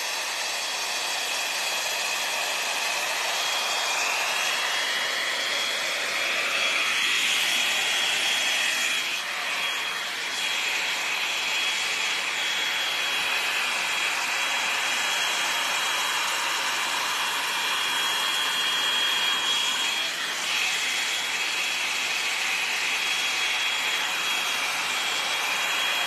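L'Ange Max Volume hot-air brush (blow dryer with a round bristle brush head) running steadily, blowing hot air, with a thin high whine from its fan motor.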